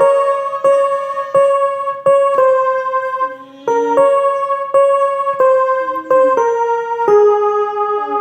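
Casio CTK-2550 portable keyboard playing a slow single-note melody, a new note sounding roughly every two-thirds of a second, with a brief pause about three seconds in.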